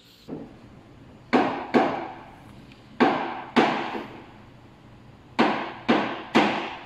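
Espresso machine portafilter being banged against a knock box to empty the spent coffee puck: sharp knocks, mostly in pairs, seven loud ones in all, each dying away quickly in the room.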